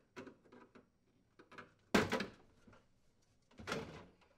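Plastic clicks and knocks as a refrigerator's water reservoir access panel is pried off its mounting posts with a flathead screwdriver. The loudest knock comes about two seconds in, with another near the end and small ticks between.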